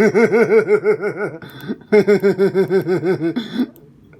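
A person's voice making a silly warbling nonsense sound. The pitch bobs up and down about eight times a second, in two runs of about a second and a half each with a short break between them.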